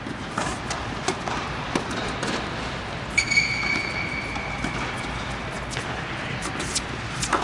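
Tennis ball hits in a doubles rally on an indoor hard court: sharp racket strikes and bounces every second or so. About three seconds in, a high steady squeal lasts about a second and a half.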